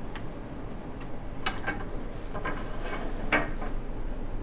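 Light, irregular clicks and ticks from a screwdriver working a screw on the plastic lamp-cartridge access panel of a rear-projection TV. The loudest click comes a little after three seconds in.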